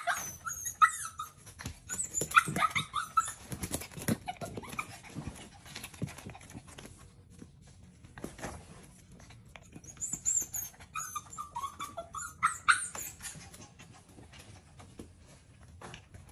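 Shih Tzu–poodle puppy whining in high, wavering cries while begging for food at a table. The cries come in bouts near the start and again around ten to thirteen seconds in, with scattered short clicks and taps between them.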